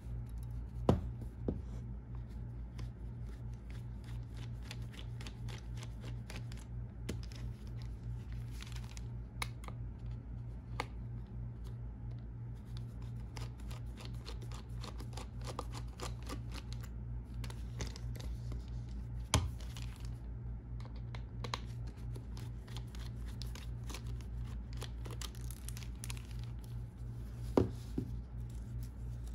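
Precision screwdriver working the small screws out of a 2013 Mac Pro's metal I/O port panel: a run of light clicks and scratchy handling noise from the bit and gloved hands, with three sharper clicks of metal parts (about a second in, midway, and near the end). Under it all is a steady low hum.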